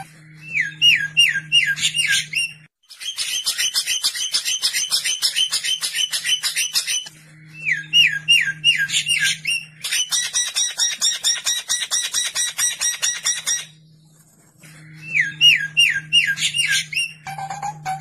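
Songbird singing a harsh tutor song in repeating phrases: a run of about six quick rising-and-falling whistled notes, then a burst of fast, rasping chatter. The same sequence comes round again twice, with a brief pause before the last run of whistles.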